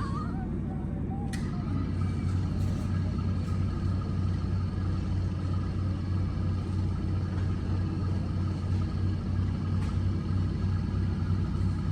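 Steady low hum of a running machine's motor, with a couple of faint clicks, one about a second and a half in and another near the end.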